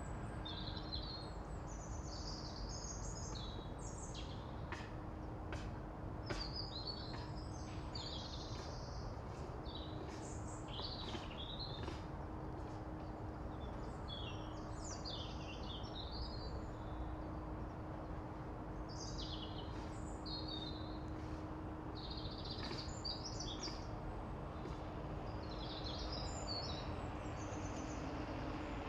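Birds chirping and singing in short repeated phrases over a steady low outdoor rumble, with a faint steady hum underneath.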